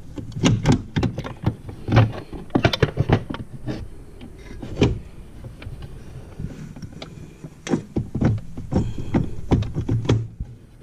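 Irregular metal clicks, clinks and knocks from hand-fitting the reverse gear and shift fork into an open snowmobile chaincase and handling its cover and bolts, in several short clusters.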